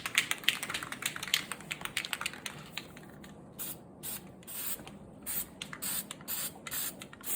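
Aerosol can of high-zinc cold galvanizing compound being sprayed in many short hissing bursts. The bursts come quickly together at first, then separately about every half second from the middle on.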